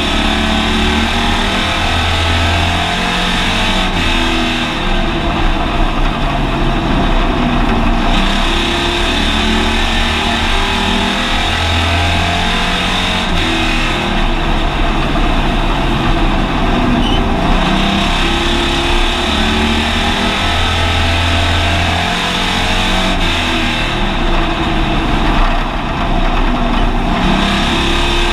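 Hobby stock race car's engine running hard at racing speed on a paved oval, heard from inside the car's cabin over steady road and wind noise.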